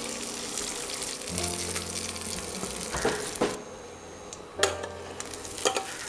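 Soaked, spiced rice sizzling as it goes into hot oil in a steel kadai, with a few sharp clacks against the pan and a wooden spatula beginning to stir near the end.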